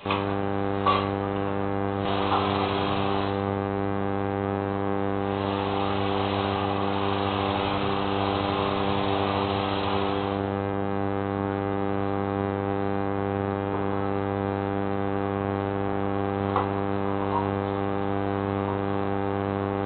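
Steady electrical mains hum, a stack of even tones, picked up in a CCTV camera's audio. A hiss swells over it briefly about two seconds in and again for several seconds near the middle, with a few faint clicks.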